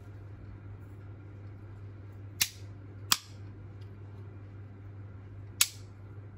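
Three sharp plastic clicks as an Apple 20W USB-C power adapter is handled at its plug pins, the second and third the loudest, over a steady low hum.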